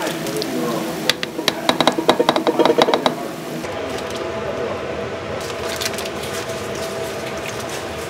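Cut pieces of food slid off a plate into a pot of broth, making a quick run of small plops and clicks for about two seconds, then a steady mechanical hum.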